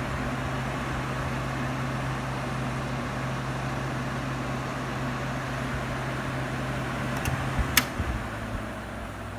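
Friedrich K-Star window air conditioner running on high cool: the fan blows a steady rush of air over a steady low compressor hum. A couple of sharp clicks come near the end, after which the hum drops a little.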